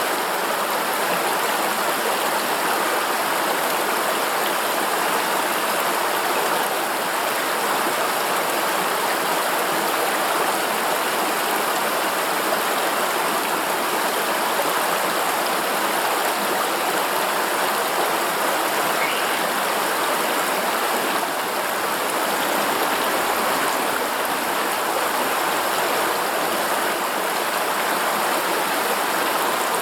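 Steady rushing of a river flowing through a forest.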